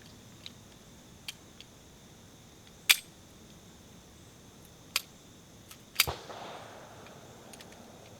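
Three shots from a Springfield Armory M1911-A1 .45 ACP pistol, about two seconds and then a second apart; the last is the loudest and rings out for a couple of seconds. A few light clicks between them.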